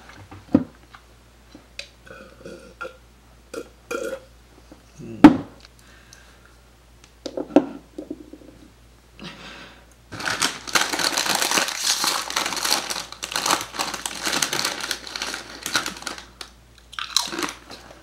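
A person's mouth noises after swallowing liquid foundation: small wet clicks and smacks, one loud throaty gulp about five seconds in, then from about ten seconds a long stretch of dense crackling, crunch-like noise.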